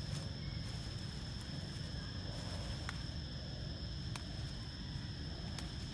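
Cassava leaves being picked by hand: a few sharp snaps of leaf stalks among rustling foliage, over a steady low rumble and a steady high tone.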